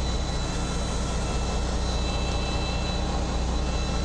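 Fishing boat's engine running steadily: a low even hum, with a faint steady high whine over it.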